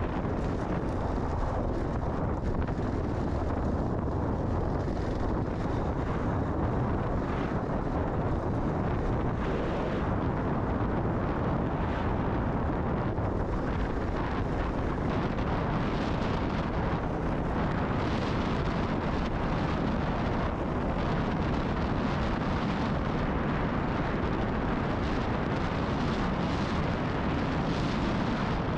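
Kawasaki KLR650's single-cylinder engine running steadily while riding, under heavy wind noise on the microphone.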